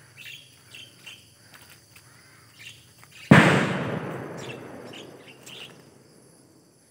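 A single sudden loud bang about three seconds in, dying away over the next two seconds or so, with faint bird chirps before it.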